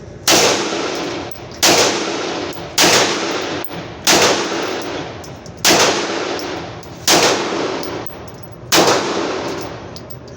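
Seven pistol shots fired one at a time at a slow, steady pace, roughly one every second and a half, each followed by a long fading echo.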